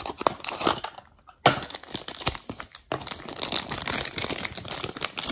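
Hands opening a small cardboard Tomica die-cast toy box and unpacking the car: rustling and crinkling of packaging, with a brief pause about a second in and sharp restarts after it.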